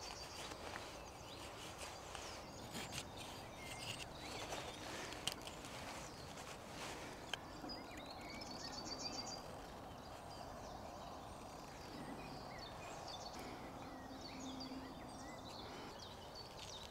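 Faint scraping strokes of a knife blade shaving thin curls off a dry wooden stick, several strokes in the first half. Birds chirp in the background, with a short trill about eight seconds in.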